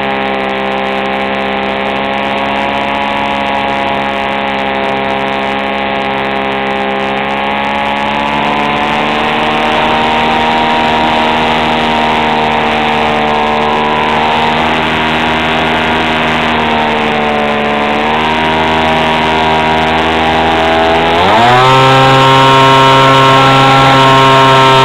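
Radio-controlled model plane's motor and propeller, heard from a camera on board in flight. The motor runs steadily with a slight dip in pitch, then rises sharply in pitch about 21 seconds in and holds there as the throttle is opened up.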